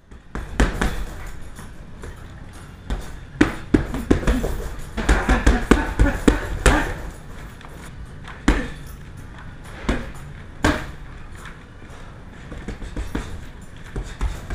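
Boxing gloves punching a hanging Everlast heavy bag: irregular thuds, some in quick runs of several blows and others single, spaced a second or more apart.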